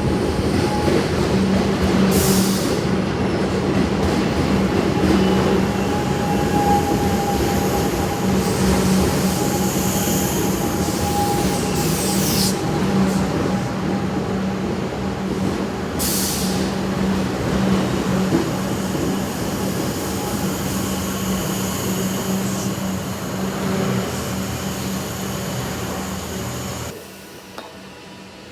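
Melbourne suburban electric train at a station platform: a steady loud rumble with a constant hum, three short high hisses along the way, stopping abruptly near the end.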